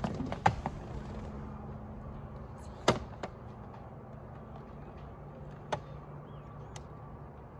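A steady low hum with a few short, sharp clicks or knocks: several in the first second, then single ones near three seconds and near six.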